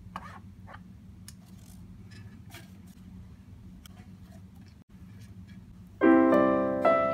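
Faint scraping and soft plops as thick chocolate tofu batter is poured and scraped from a metal sieve bowl into a parchment-lined baking dish. About six seconds in, loud piano music starts suddenly.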